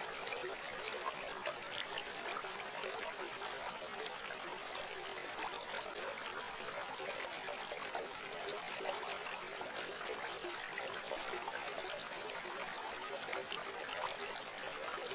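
Steady trickle of running water, with small crackles throughout.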